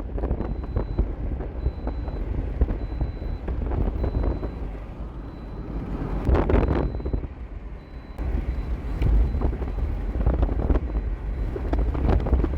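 Gusty wind buffeting the microphone, a heavy low rumble that swells and eases with the gusts, strongest about six seconds in.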